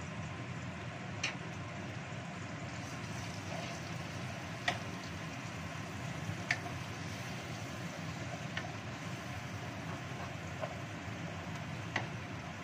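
Ground chili spice paste sizzling in hot oil in a wok while being stirred, over the steady whoosh of a range hood fan. About six short sharp ticks stand out at intervals.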